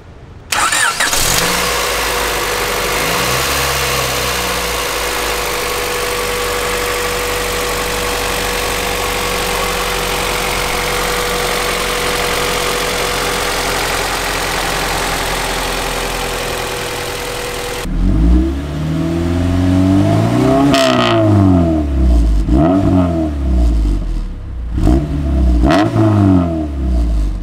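Honda B18C Type R 1.8-litre DOHC VTEC four-cylinder, already warm, starting about half a second in and settling into a steady idle. From about two-thirds of the way through it is revved several times, pitch rising and falling with each blip.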